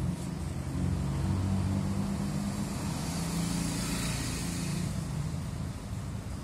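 A vehicle engine running steadily, a low hum.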